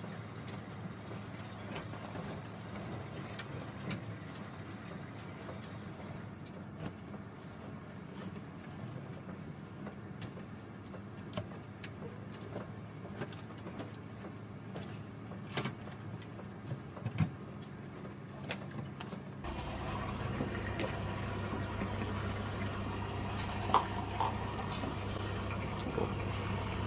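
Laundry being stuffed by hand into a front-loading washing machine: soft rustling of fabric with scattered light knocks and clicks over a steady low hum. About two-thirds of the way through, the background hum abruptly becomes louder.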